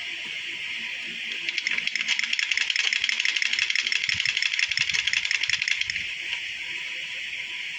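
Sewing machine stitching in a run of about four seconds, a rapid even clicking of roughly ten stitches a second, before it stops.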